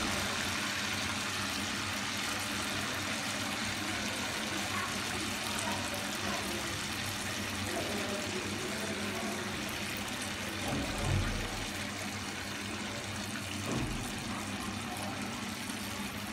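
Egg-coated jali kebabs frying in shallow hot oil in a frying pan: a steady sizzle, as beaten egg is drizzled over them to form a lacy net. A brief low thump about eleven seconds in.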